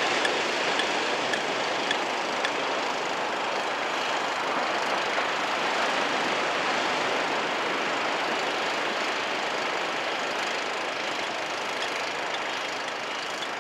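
Small waves breaking close to shore and washing up the beach, a steady rushing noise with a few faint ticks.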